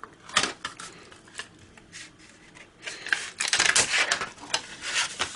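Thin plastic casing of an HP CM03XL laptop battery pack clicking and clattering as it is handled, with a dense run of clicks about three and a half seconds in and a few more near the end.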